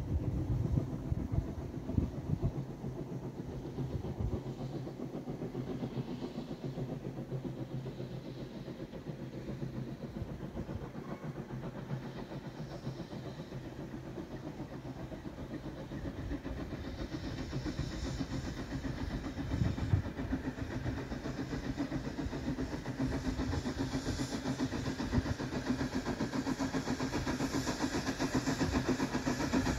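Distant train approaching along the line, its running sound slowly growing louder through the second half. Wind rumbles on the microphone now and then.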